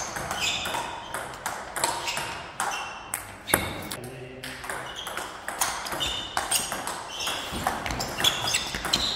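Table tennis rally: the ball clicking off the paddles and bouncing on the table in quick succession, each hit a sharp click with a short ringing ping.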